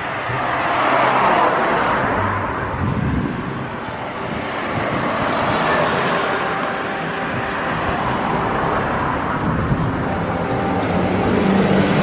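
Street traffic: cars passing one after another, each rising and fading, with a van's engine passing close near the end.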